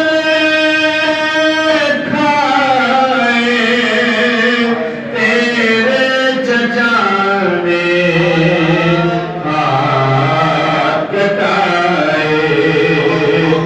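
A man's voice chanting a nauha, a Shia mourning lament in Urdu, with no instruments, in long held notes that glide from pitch to pitch, with short breaks between phrases.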